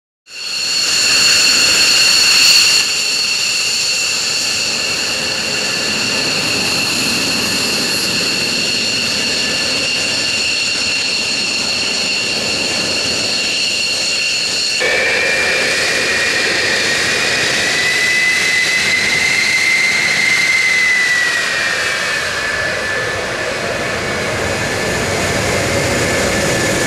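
Jet engines whining on the ground. First the twin turbofans of an F-15J Eagle give a steady high whine. After a sudden change about halfway, the twin J79 turbojets of an RF-4 Phantom take over, their whine lower and sagging a little in pitch near the end.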